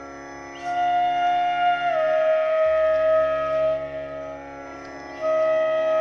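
Background music: a flute-like melody of long held notes, each sliding down a step, over a steady drone. The melody drops away for about a second in the middle and comes back near the end.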